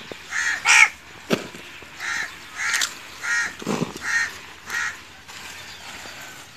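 A crow cawing over and over, about eight short harsh calls spaced half a second to a second apart, stopping about five seconds in. A single sharp knock comes about a second and a half in.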